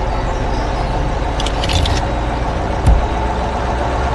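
Heavy excavator engine sound effect running steadily as the machine moves, with a single low thud about three seconds in.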